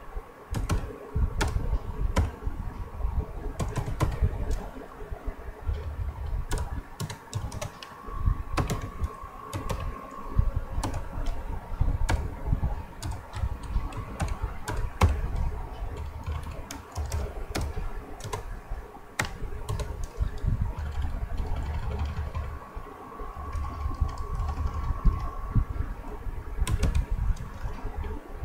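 Typing on a computer keyboard: irregular keystroke clicks with short pauses between bursts.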